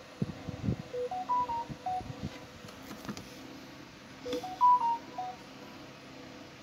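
A short tune of electronic beeps, stepping up in pitch and then dropping back, played twice about three seconds apart; the second time is louder. A few dull knocks come in the first second.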